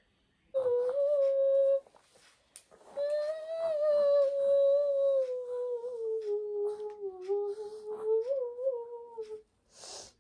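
A woman humming a lullaby to a baby held on her shoulder: a short held note, then after a pause one long note that drifts slowly lower with small wavers. Faint clicks and taps run under it.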